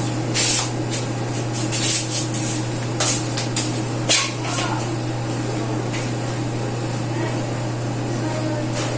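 Scattered clinks and knocks of kitchen items being handled over a steady low hum, the clatter thinning out after about four and a half seconds.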